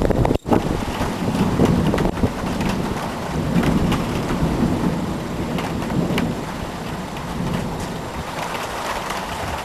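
Thunder rumbling in long rolling waves over steady rain.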